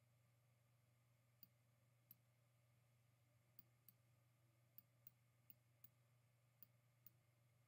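Faint, irregular clicks of a computer mouse, about ten of them, over a low steady hum.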